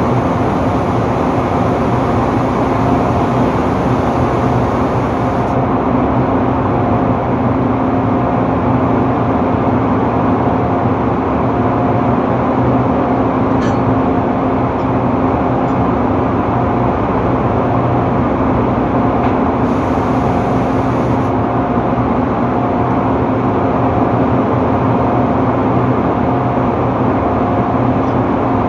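Steady, loud drone of drilling-rig machinery on the rig floor, with a low hum and a higher tone that comes and goes.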